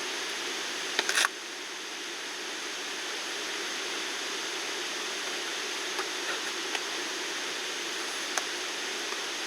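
Steady hiss of falling rain, with a brief cluster of knocks about a second in and a few faint clicks later on.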